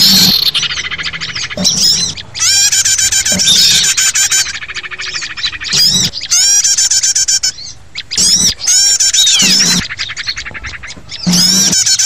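Noisy chorus of many small songbirds chirping and trilling over one another in quick repeated bursts with short gaps. It is a compiled bird-lure (pikat) recording made to call in wild birds.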